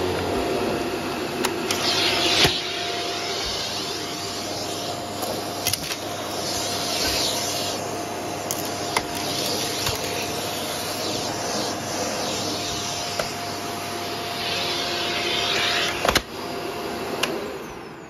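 Hoover vacuum cleaner running on carpet: a steady motor whine with rushes of suction that swell as it is pushed across the pile, and scattered sharp clicks of debris being sucked up. There is a louder knock near the end.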